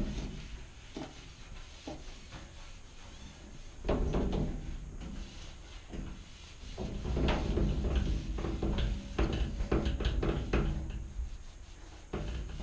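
A microfibre window cloth wiping over a glass shower door in irregular strokes, with knocks and rattles from the sliding door moving in its metal frame.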